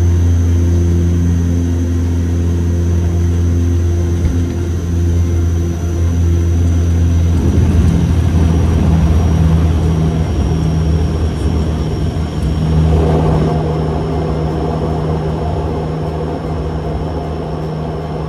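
Antonov An-26's twin Ivchenko AI-24 turboprop engines and propellers heard from the cockpit: a steady, loud drone with a thin high whine that slowly falls in pitch. A rougher rushing noise rises from about eight seconds in as the aircraft runs low over and along the dirt runway.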